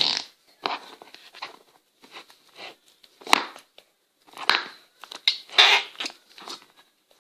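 Pink slime in a noise-maker tub being squished and pulled by hand, giving a run of short, irregular wet squelching and crackling sounds.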